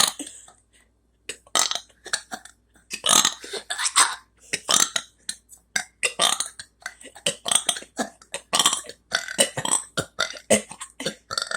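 A person burping over and over, a long string of short burps in quick succession after a brief pause about a second in.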